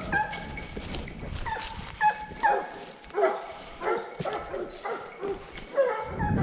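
A pack of Fauve de Bretagne scent hounds baying, several voices overlapping: giving tongue while running a roe deer's scent. Short calls come about two a second, each sliding down in pitch.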